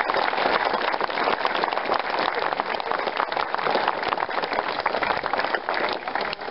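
Crowd applauding: many people clapping in a dense, steady patter.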